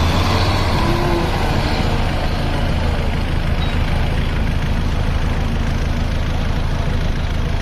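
Heavy diesel engines running with a steady low drone as a loaded Ashok Leyland truck pulls out through soft mud, with a JCB 3DX backhoe loader working close by.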